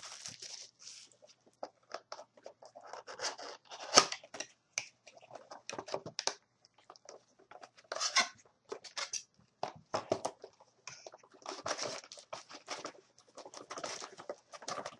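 Hockey card packaging being torn open and handled: irregular scratchy rustling and tearing, with a sharp loud crack about four seconds in and another loud rustle about eight seconds in.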